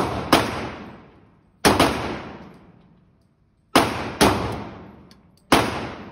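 Six .40 S&W pistol shots at an uneven pace, some in quick pairs and some a second or two apart. Each is a sharp crack with a long echoing decay from the indoor range.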